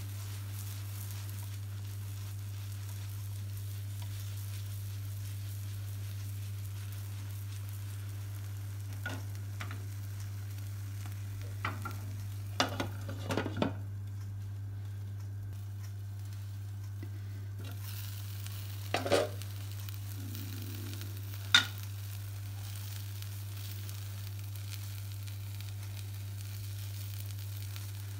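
Omelette sizzling gently in a hot frying pan, with a steady low hum underneath. A few sharp clinks of a glass pan lid being set on the pan and later lifted off come about halfway through and again a little later.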